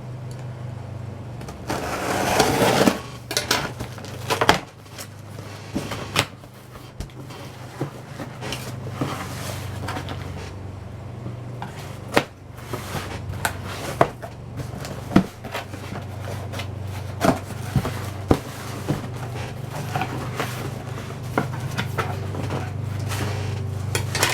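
A cardboard shipping box being opened and handled by hand: a loud tearing or scraping stretch about two seconds in, then scattered clicks, knocks and rustles of cardboard and packing. A steady low hum runs underneath.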